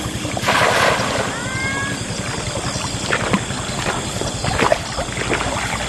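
A weighted cast net splashes down onto the river water about half a second in, followed by scattered small splashes as the fisherman wades in the shallows.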